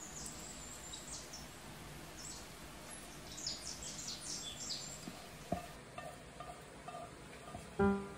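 Faint, short high-pitched chirps over quiet background noise, with a single click a little past halfway. Near the end, piano music comes in much louder with clearly struck notes.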